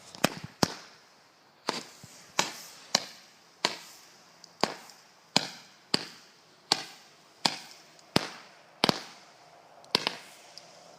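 A small 19-shot Dominator Fireworks 'Sure Shot' cake firing its shots one after another: about fifteen sharp pops, one every half second to a second.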